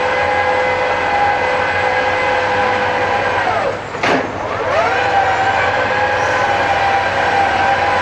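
Bauer BG 25 rotary drilling rig running with a steady, multi-tone mechanical whine. About three and a half seconds in the whine sinks sharply in pitch, a single knock sounds, and the whine climbs back to its former pitch within about a second.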